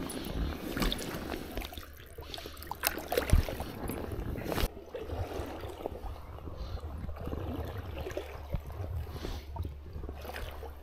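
Water sloshing and trickling close by, with a few sharp knocks, the loudest about three and about four and a half seconds in.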